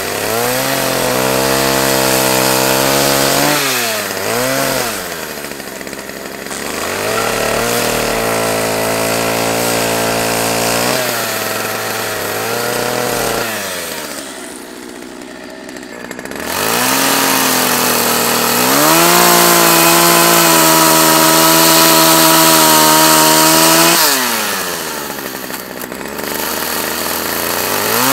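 Poulan Pro two-stroke gasoline chainsaw cutting into the top of a standing log stump: the engine revs up to full throttle and holds through three long cuts, dropping back to idle between them, the last cut the loudest.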